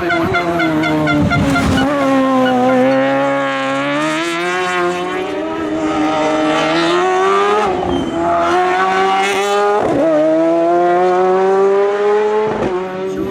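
Racing car engine at high revs, its note climbing and falling as the car is driven hard, with brief cuts in the engine note about eight and ten seconds in and again near the end.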